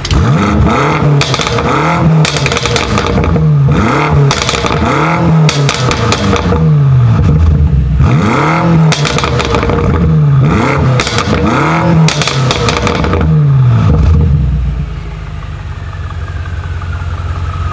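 2019 BMW M5 Competition's twin-turbo V8 being blipped through a dozen or so quick, short revs in Sport Plus with the exhaust valves open, crackling and popping on each lift-off. It settles back to a steady idle about fifteen seconds in.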